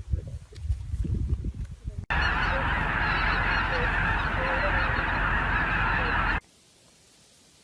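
A loud, dense clamour of many birds calling at once, starting suddenly about two seconds in and cutting off suddenly after about four seconds. Before it there is a low rumbling noise.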